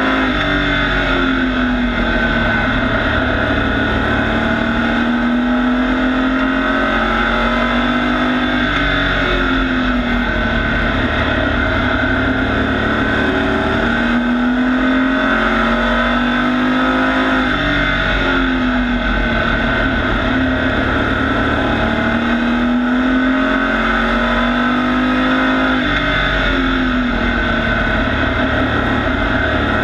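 Pro truck race engine of a Dodge Ram race truck, heard from inside the cab at racing speed. Its pitch drops and climbs again in a repeating cycle about every seven to eight seconds as the driver lifts for each turn and accelerates down each straight, lap after lap.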